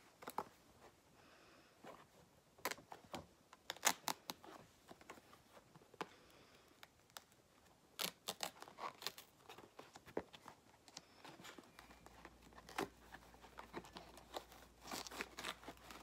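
Packaging being handled: short, irregular rustling, crinkling and tearing of paper and plastic as an advent calendar door is opened and a small pair of socks unwrapped.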